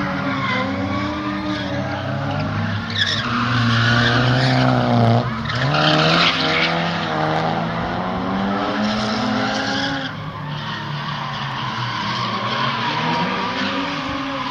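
Drift cars' engines revving hard, the pitch rising and falling again and again as they slide through the turns, with tyre squeal mixed in. Loudest about four to seven seconds in.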